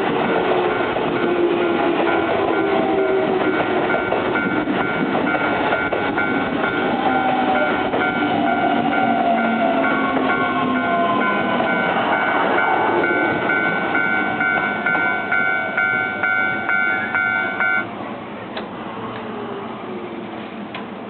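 Keio line level-crossing warning bell ringing in rapid, even repeats while an electric train runs by with a whining motor that shifts in pitch. The wheels clack over the rail joints near the end, and the bell stops suddenly about three-quarters of the way through.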